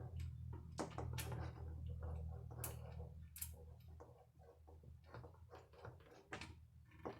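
Scattered sharp clicks and light taps from hand work on the bolts and bent sheet-metal legs of a router table, over a low steady hum that fades about halfway through.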